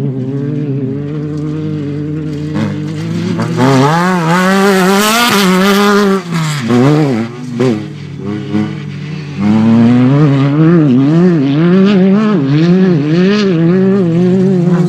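Off-road desert race vehicles' engines revving hard as they pass, the pitch rising and falling again and again with throttle changes over rough ground. One vehicle comes through loudly about four seconds in, and another gets loud from about nine and a half seconds.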